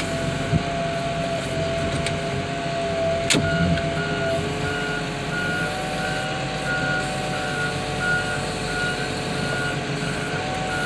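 Heavy equipment running with a steady mechanical whine that steps up slightly in pitch about four seconds in. At the same point a backup alarm starts beeping, repeating about twice a second. A single sharp click comes a little earlier.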